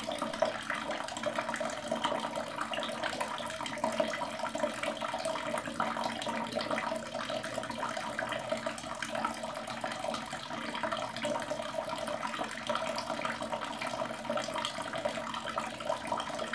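Water running from a wall tap and splashing over forearms and hands onto the tiled wall and floor, an even rush with small splashes.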